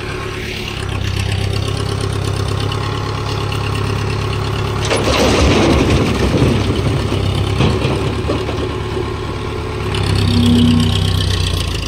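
Tractor diesel engine running steadily while its front-loader bucket tips a load of soil and broken bricks into a trolley, with a loud rattling clatter of bricks about five seconds in. The engine swells louder for a moment near the end.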